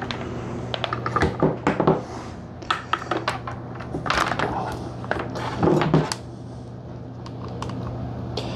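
Handling noise from a laptop charger cable and plug being plugged in: several sharp plastic clicks and rustles over the first six seconds, over a steady low hum.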